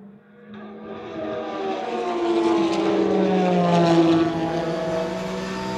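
Porsche 911 GT3 Cup race car's flat-six engine passing at speed on the track. It gets louder over the first two seconds, then drops in pitch as it goes by, about three to four seconds in.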